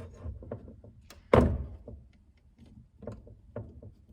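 Vise-grip locking pliers clamping a PEX pocket crimper onto a fitting: one loud metallic clunk about a second and a half in, among lighter clicks and taps as the tool is handled and adjusted between crimps.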